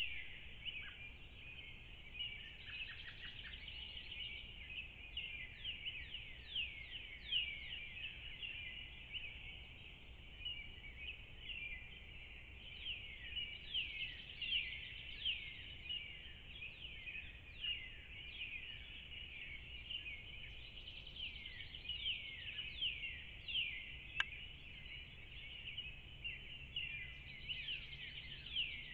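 Dawn chorus of songbirds: many overlapping quick chirps and falling whistles. A single sharp click sounds once, near the end.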